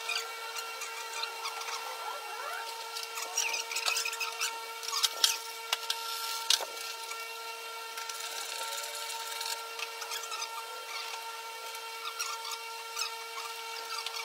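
Work noise of hand tools on car body parts: irregular clicks, scrapes and rubbing over a steady high hum, with a few sharper knocks about five to six and a half seconds in.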